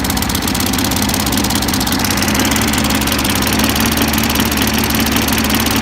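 Lawn mower engine running steadily on a Geet reactor in place of a carburetor, burning a mix of mostly water with a little gasoline and oil, warmed up to operating temperature with its exhaust fitted.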